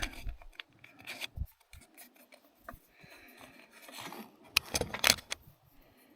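Light clicks and rubbing of small parts being handled and fitted: a spacer being worked into a Mercury 4000 series remote control housing, with a cluster of sharper clicks about two thirds of the way through.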